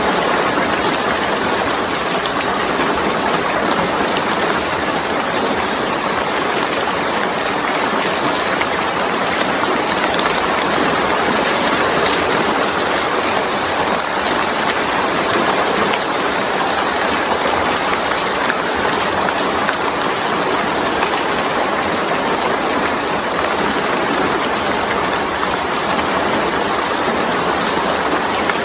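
Steady, dense rain falling, an even hiss of many drops without a break.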